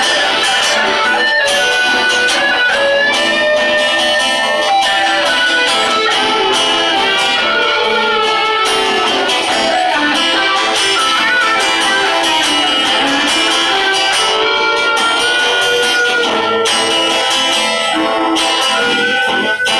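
Live band playing steadily and loudly: strummed acoustic and electric guitars over a drum kit, with a saxophone among the instruments.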